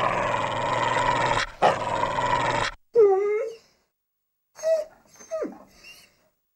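A cartoon dog in a studio logo growls loudly and raspingly in two bursts, in the manner of the MGM lion's roar. It then gives a short yelp and a few whimpering yips that fall in pitch.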